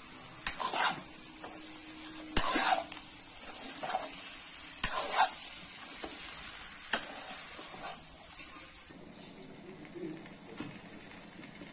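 Chicken pieces and onions sizzling as they fry in a nonstick pan, with a steel spoon stirring and scraping against the pan about four times. The sizzle drops away about three-quarters of the way through.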